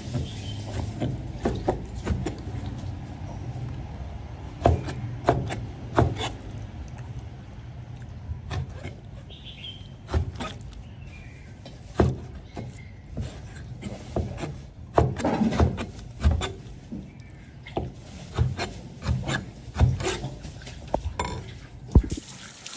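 Kitchen work on a wooden board: irregular scraping with sharp knocks against the wood, over a low steady hum.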